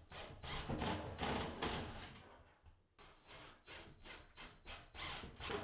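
Cordless impact driver driving screws through a bathroom exhaust fan's sheet-metal housing into a ceiling joist, in two runs of rapid rattling strokes with a short pause about halfway through.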